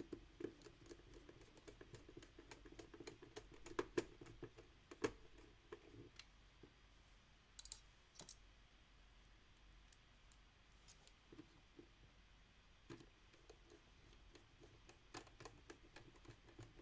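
Faint, irregular clicks and ticks of a small screwdriver working the screws of a Canon 1200D DSLR body as it is put back together, with two sharper clicks about eight seconds in.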